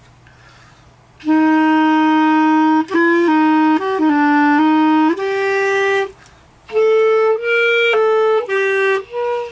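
A beginner's clarinet practice. It starts about a second in with one long held low note, then shorter single notes step up and down. After a brief pause past the middle comes a run of higher notes.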